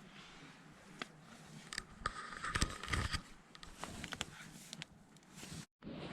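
Rustling and scraping with irregular light clicks, as of gear or fabric being handled, busiest a couple of seconds in. It cuts off abruptly near the end.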